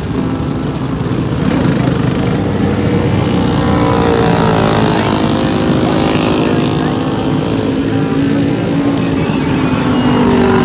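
Small engine of a dirt-track racing kart running at speed, its pitch rising and falling as the kart goes through the turns.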